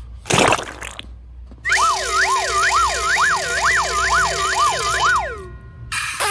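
A short whoosh, then a siren-like warbling sound whose pitch swoops up and down about twice a second for roughly four seconds before stopping.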